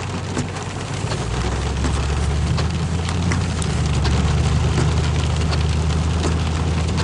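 Heavy thunderstorm rain pouring down and pattering on surfaces, full of small drop hits, with a steady low rumble underneath that grows louder about a second in.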